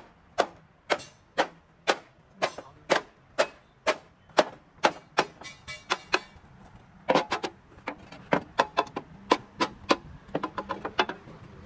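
Hammer striking steel with short ringing blows, about two a second and very even, then quicker runs of lighter strikes near the middle and toward the end.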